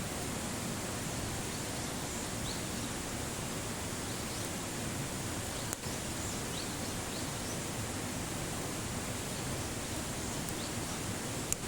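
Steady, even outdoor background noise with faint short high chirps and two sharp clicks, one about halfway through and one near the end.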